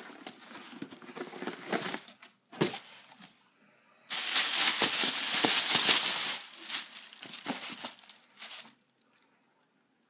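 Tissue paper rustling and crinkling as it is handled in an opened shoe box. The sound is loudest in a long stretch from about four to seven seconds in, with shorter rustles before and after, then it stops near the end.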